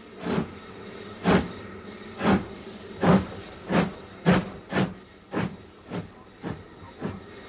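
Steam locomotive starting away with its train: loud exhaust chuffs, about a second apart at first and quickening to about two a second, over a steady steam hiss, growing fainter near the end.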